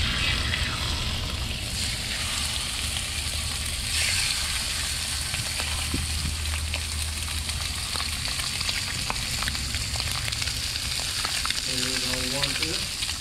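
Lobster meat frying on a Blackstone flat-top griddle: a steady sizzle with scattered crackles.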